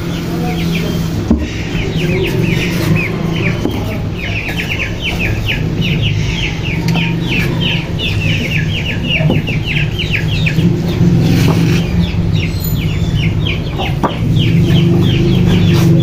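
Young chicks cheeping rapidly and without pause, many short high falling peeps overlapping, over a steady low hum.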